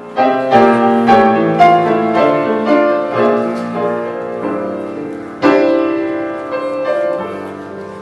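Piano playing a slow run of struck chords, with a strong chord about five and a half seconds in, as the introduction to a Motown song.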